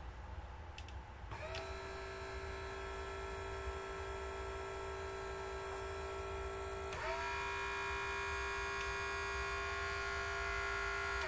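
Electric bed's small DC motor running with a steady hum. It starts about a second in, cuts out briefly and restarts about seven seconds in, and stops at the end. The motors themselves work, so the fault lies elsewhere in the control system.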